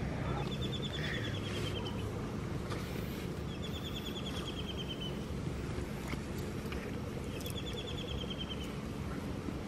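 A small bird singing: a short, fast trill of high notes that falls slightly in pitch, repeated three times about four seconds apart, over a steady low hum.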